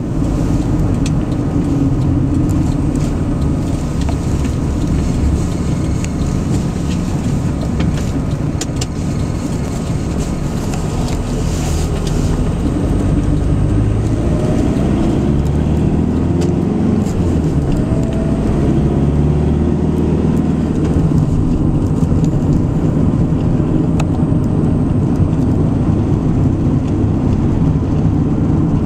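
A car driving at steady road speed, heard from inside the cabin: a continuous low rumble of engine and tyre noise.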